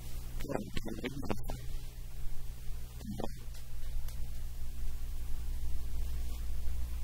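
Steady low electrical hum, with brief sounds of eating at a table, one short cluster about half a second in and another about three seconds in.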